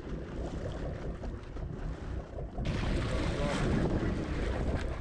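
Wind buffeting the microphone over sea noise on an open boat. The sound steps abruptly louder and brighter about two and a half seconds in.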